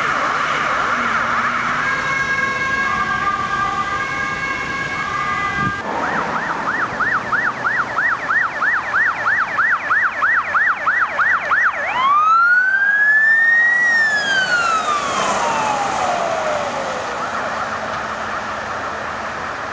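Ambulance electronic sirens. The first sounds a fast yelp and then steady alternating tones. After about six seconds a second ambulance's siren yelps at about three sweeps a second, then switches to a single slow wail that rises and then falls away, leaving road traffic noise.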